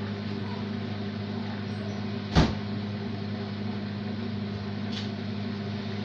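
Beko 6 kg front-loading washing machine running with a steady hum, broken by one sharp knock a little over two seconds in.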